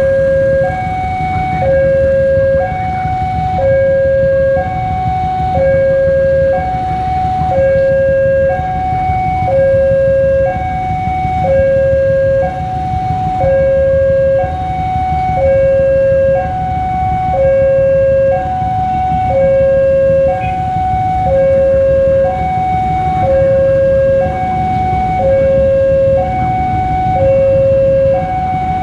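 Railway level-crossing warning alarm sounding a repeating two-tone signal, high then low, about a second each, warning that a train is approaching while the barriers are down. A steady rumble of waiting traffic runs underneath.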